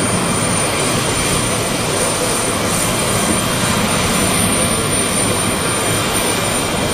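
Tu-154B-2 jet airliner's three NK-8-2U turbofan engines in flight, a steady jet noise.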